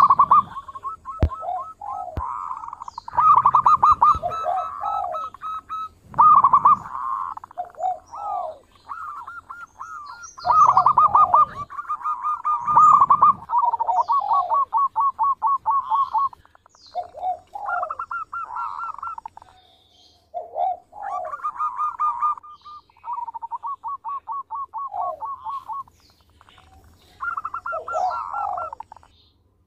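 Zebra dove (perkutut) cooing: a run of phrases, each a quick burst of staccato notes with short pauses between phrases.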